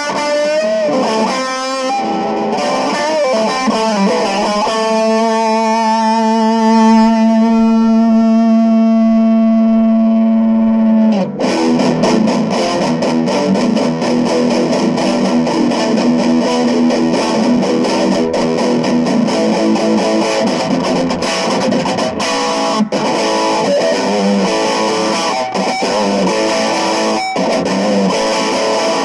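Electric guitar, a Cort CR50, played through a Cort MX15R practice amp. A few picked notes lead into a chord held and left ringing for about six seconds, then busier riffing.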